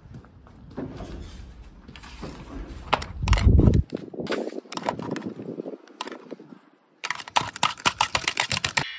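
Handling noise on a phone's microphone: rubbing, knocks and a heavy low rumble as the phone is moved about, with a brief high tone a little past the middle. Near the end comes a rapid run of sharp clicks that cuts off suddenly.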